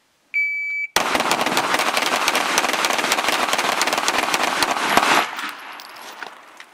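An electronic shot timer gives one short high beep, then three handguns and a rifle open fire together in rapid, overlapping shots for about four seconds, close to fifty rounds, before the shooting trails off.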